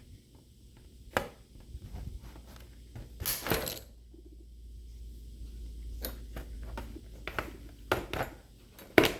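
Sharp plastic clicks and knocks from the laptop's case being pried apart and handled, with a short scrape about three seconds in and the loudest snap near the end.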